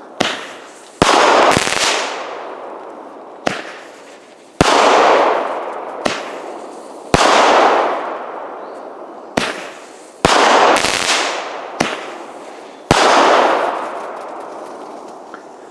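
Small consumer firework cake ("Cover Your Ears") firing shot after shot: about a dozen loud bangs at uneven gaps of half a second to two seconds, each trailing off in a fading rush of noise.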